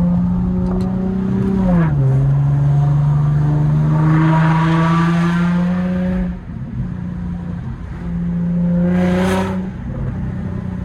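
Infiniti car's engine and exhaust running with a steady drone. The pitch drops about two seconds in, the sound falls away about six seconds in, and rushing swells come in between and again near the end. The exhaust has a leak that the owner says makes it pop louder.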